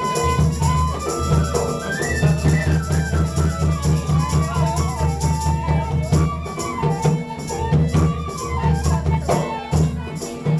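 Live Nepali folk music: hand drums beat a steady, quick rhythm under a wandering melody and a held drone.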